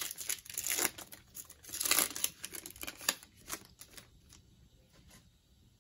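Foil wrapper of a football card pack being torn open and crinkled, with a longer rip about two seconds in. The rustling fades to a few faint taps near the end.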